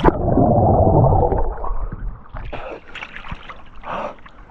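A person going under in cold lake water: a splash right at the start, then about a second and a half of loud, muffled gurgling and bubbling, then quieter sloshing and small splashes.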